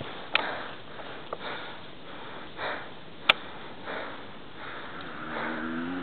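Heavy breathing and sniffing close to the microphone, in soft puffs about every second or so. A single sharp crack of an airsoft gun shot cuts in about halfway, and a voice starts near the end.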